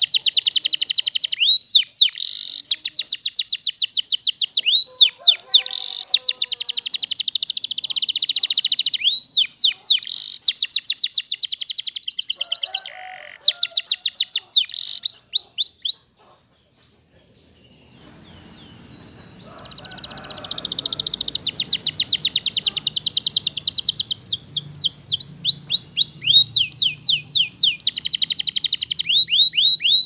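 Domestic canary singing long, high, rapid trills and rolls, phrase after phrase. The song breaks off for about two seconds midway, then starts again.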